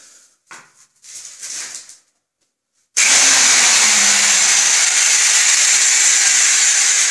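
A few short handling and rustling noises, then about three seconds in a hammer drill starts suddenly and runs loud and steady.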